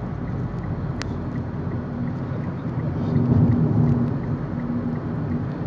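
Road and engine noise heard inside a moving car's cabin: a steady low rumble with an even hum, swelling briefly around the middle, and a single small click about a second in.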